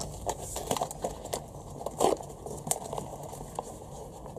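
Rustling and crinkling with scattered light clicks as hands handle things on a workbench strewn with paper shop towels; one louder rustle about two seconds in.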